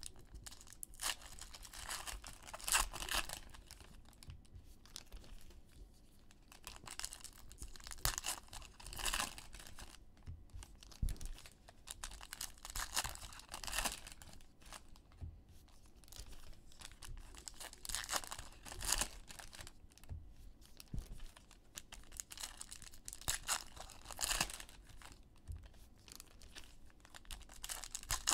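Foil trading-card pack wrappers being torn open and crinkled by hand, in repeated short bouts every few seconds.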